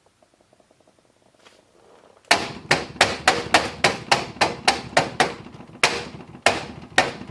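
Fingers knocking hard and repeatedly on the thick white plastic grill of a Torcan box fan: about fifteen sharp raps, roughly three a second, starting a couple of seconds in. The grill gives a solid knock, with no rattle or flex.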